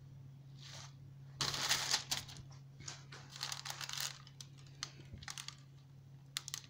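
Greaseproof paper crinkling and rustling as it is pulled across the cake, with a run of light clicks and taps starting about a second and a half in and thinning out toward the end.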